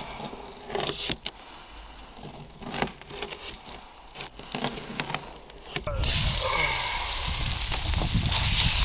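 A knife slicing seasoned catfish fillets on a paper plate, with faint taps and clicks. About six seconds in, catfish strips frying in a pan over a campfire take over: a loud, steady, dense sizzle.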